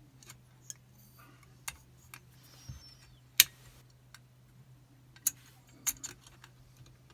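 Irregular small metallic clicks and ticks from a tension tool and picking wire working inside a Chubb Detector 5-lever lock as the bolt is pushed toward fully thrown, with one sharper click about three and a half seconds in.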